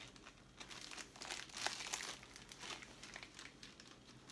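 Clear plastic wrapping crinkling in faint, irregular crackles as a rolled diamond-painting canvas is handled.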